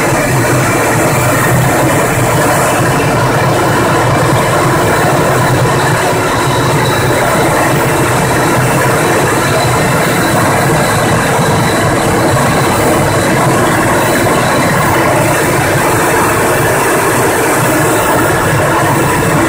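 Loud, steady engine and airflow noise inside a military aircraft's cockpit in flight.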